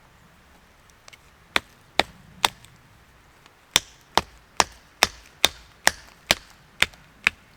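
Sharp, dry blows driving a freshly carved wooden wedge into the crack of a flat stone to split it: three strikes, a short pause, then a steady run of about nine strikes at roughly two a second.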